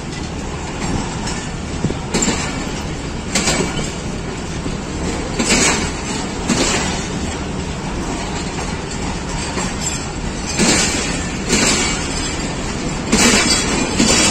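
Pakistan Railways passenger coaches rolling past at low speed as the train pulls out of the station, under a steady rumble. The wheels clack over rail joints every second or two.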